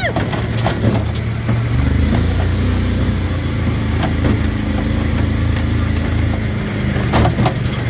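Tomcar off-road buggy's engine running steadily as it drives along a rough dirt track, with scattered knocks and rattles over the bumps and a cluster of knocks about seven seconds in.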